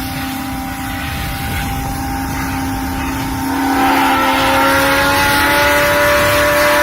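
Grand Canyon Railway locomotive pulling into the station: a steady engine drone with a low rumble and a held tone. A little past halfway it grows louder and fuller as more, higher tones come in.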